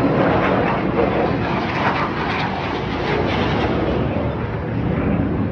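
Jet noise from the Black Eagles' T-50B jets flying past, a steady rushing roar that eases off slightly near the end.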